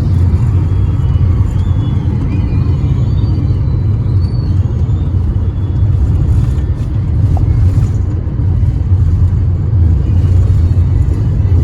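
Steady low road rumble of a moving car.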